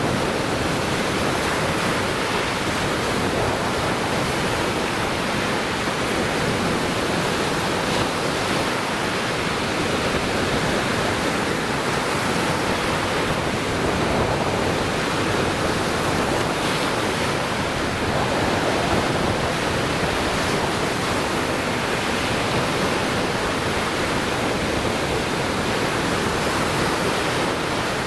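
Lake Michigan waves breaking on the shore: a steady, unbroken wash of surf.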